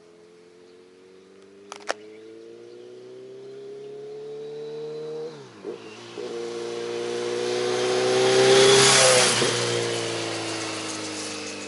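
Kawasaki Z900RS inline-four motorcycle with a Maverick slip-on silencer passing by. Its exhaust note climbs in pitch and loudness as it approaches, with a brief dip about five seconds in. It is loudest around nine seconds in, then drops in pitch and fades as it rides away. A couple of sharp clicks come about two seconds in.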